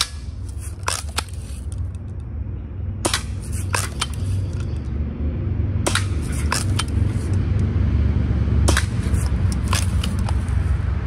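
Daisy Red Ryder lever-action BB gun fired four times, about every three seconds. Each shot's sharp snap is followed by a couple of quick clicks and clacks: the BB striking the targets and the lever being worked to cock it. A steady low rumble runs underneath.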